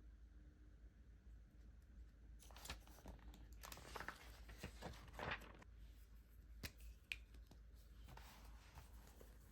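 Paper being handled at a desk: a few seconds of rustling and tearing, a couple of sharp clicks, then more rustling near the end.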